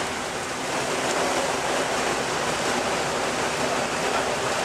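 Steady noisy din of a city bus's diesel engine running as it pulls in, heard inside an enclosed underground bus terminal.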